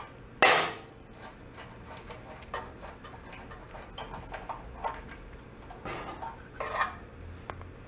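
Hand tools and small metal parts clinking and clanking as they are handled, with one loud, sharp clatter about half a second in and a few lighter clinks later on.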